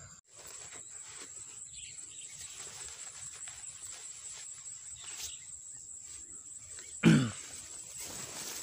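Field insects, crickets, chirring steadily in a high thin tone. About seven seconds in, a short loud cry falls sharply in pitch.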